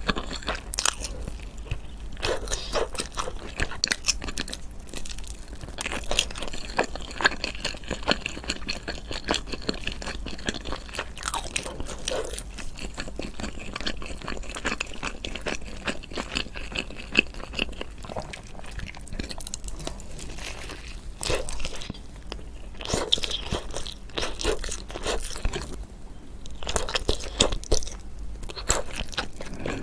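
Close-miked eating: a person chewing and biting food, with many irregular crunching and wet mouth clicks.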